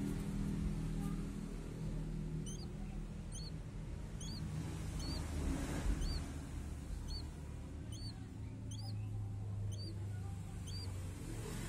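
Young crested goshawk chick giving a run of short, high, thin chirps, about one every two-thirds of a second, starting a couple of seconds in: begging calls while being hand-fed raw meat.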